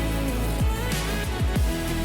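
Background music with a steady beat of deep kick-drum hits that drop in pitch, under held notes.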